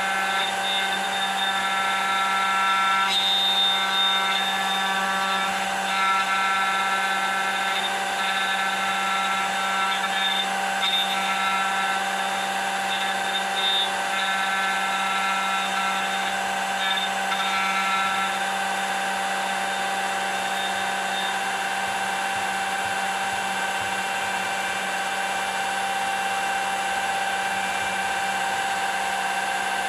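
Router on a homemade manual copy carver running steadily with a whine, its bit cutting into a wooden workpiece. Sharper cutting tones come and go through the first two-thirds as the bit is guided along the pattern, then the motor runs on more evenly.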